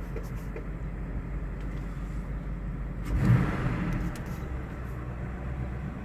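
2000 Cadillac engine idling, given one quick snap of the throttle about three seconds in that revs it briefly before it drops back to idle. This is a snap-throttle test for a misfire at idle, worst on cylinder 4, which the mechanic thinks is ignition related.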